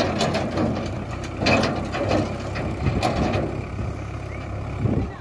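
Sonalika 750 tractor's diesel engine running steadily, with a couple of short knocks about one and a half and three seconds in.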